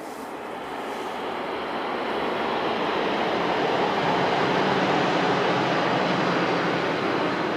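Tohoku Shinkansen high-speed train passing at speed along a concrete viaduct: a rushing noise that swells over the first few seconds, peaks about halfway, then eases slightly near the end.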